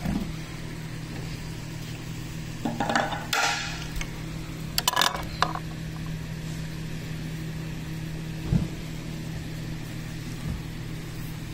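Clinks and rattles of a steel recliner mechanism being handled, in two short clusters a few seconds apart, then a single dull knock. A steady low hum runs underneath.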